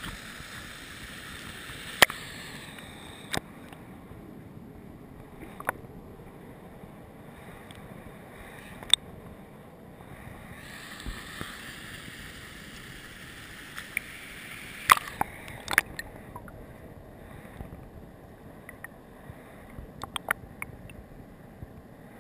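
River water rushing and lapping around a waterproofed action camera held at the surface, a steady wash with scattered sharp clicks and knocks against the housing, the loudest about 2 s in and again near 15 s.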